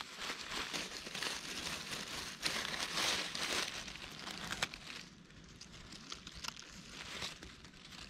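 Dense crinkling and crackling rustle with many small sharp snaps, loudest around the middle and quieter toward the end.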